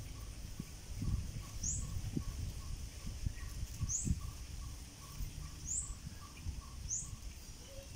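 Birdsong: a steady series of short, evenly spaced notes, about three a second, with a few short high chirps over it. A low rumble of wind on the microphone runs underneath.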